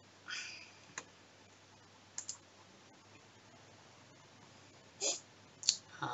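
A few scattered sharp clicks from a computer mouse and keys being worked, about five spread over the few seconds, over a faint low hum.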